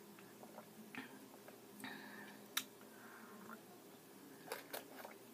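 Faint sipping and swallowing of champurado from a foam cup, with a few small sharp mouth clicks, over a low steady hum.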